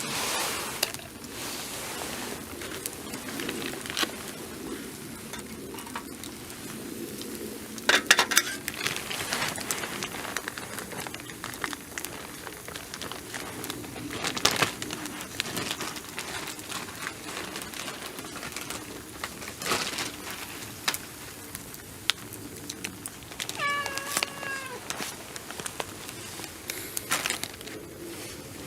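A domestic cat gives a single short meow that falls slightly at its end, late in the stretch. A few sharp clicks or knocks sound at scattered moments over low background noise.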